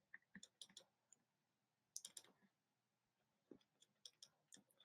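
Near silence with a few faint, sharp clicks: a small cluster near the start, a couple about two seconds in, and a few more near the end.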